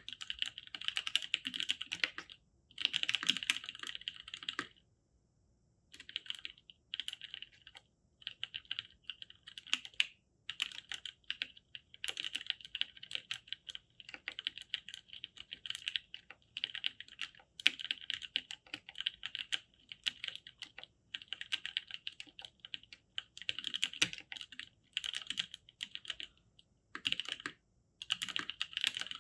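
Typing on a mechanical keyboard with lubed NovelKeys Cream linear switches and GMK Signal keycaps: fast runs of keystrokes in bursts of a second or two with short pauses between them.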